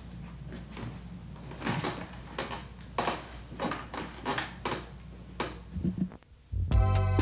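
Light knocks and clicks of objects being handled and set down at a lab bench, over a steady low hum. Near the end the sound briefly drops out and loud music cuts in.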